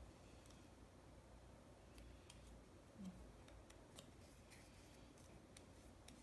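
Near silence with faint, scattered ticks and light rustles of small paper card pieces being handled between the fingers.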